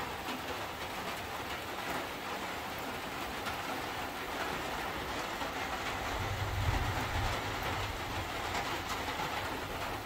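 Steady rain falling, with a low rumble that swells about six seconds in and fades a second or so later.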